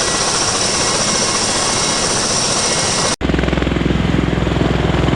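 V-22 Osprey tiltrotor aircraft's proprotors and turboshaft engines: a steady rushing noise, then after a sudden cut about three seconds in, a deeper, rapidly pulsing rotor beat.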